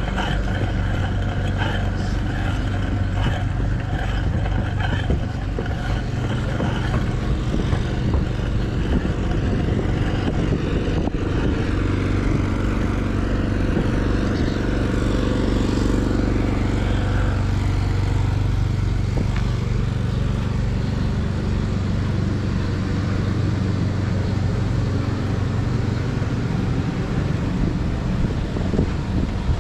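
Riding noise from a camera mounted on a cyclocross bike: knobby tyres rolling through sand, drivetrain rattle and wind over the microphone, steady throughout with a low hum beneath.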